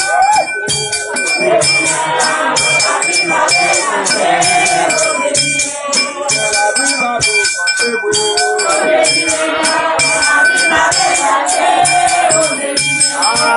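Group singing of a Vodou ceremonial chant over a steady rattle and shaker beat, with high ringing tones like a bell.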